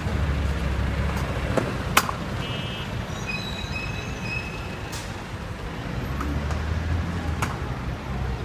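City street traffic: a steady low rumble of passing vehicles, with a few sharp clicks and some short, high-pitched beeps two to four seconds in.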